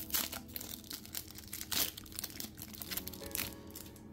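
The foil wrapper of a Pokémon trading card booster pack being torn open and crinkled by hand: a run of short crinkles and rips.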